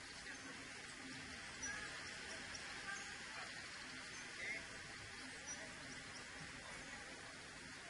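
Faint steady background hiss with a few short, high bird-like chirps scattered through it and a faint low hum underneath.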